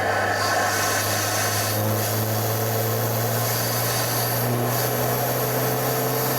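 BMW 328i's N20 turbocharged four-cylinder engine, fitted with an open aftermarket intake, running steadily under light throttle with road noise. Its note slowly rises in pitch.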